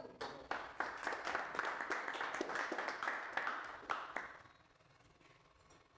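Small audience applauding, the separate claps easy to pick out, dying away after about four seconds.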